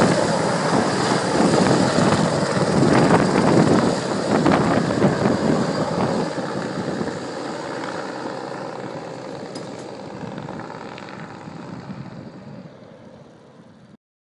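Helicopter flying away after takeoff, its rotor and engine sound loud at first and fading steadily as it recedes, with a thin high whine running through it. The sound cuts off abruptly near the end.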